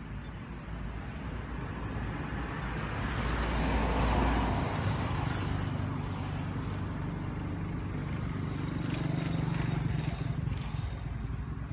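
Motor vehicle passing: engine and road noise swell to a peak about four seconds in, then a steady low engine hum carries on and fades near the end.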